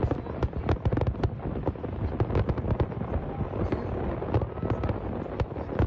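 Fireworks display: a dense, irregular run of bangs and crackles from aerial shells bursting, several a second, over a continuous low rumble.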